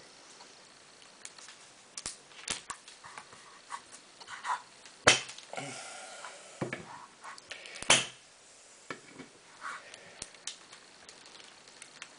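Pliers gripping and working a divider out of a block of hard, brittle salt soap: a run of sharp clicks and cracks with short scraping creaks, the two loudest snaps about five and eight seconds in.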